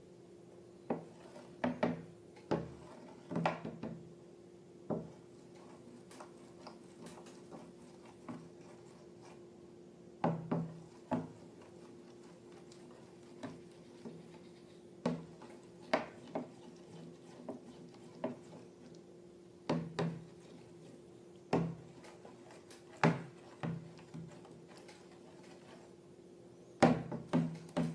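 Irregular knocks, taps and clicks of small objects being handled and set down on a hard tabletop, some in quick clusters, over a steady low hum.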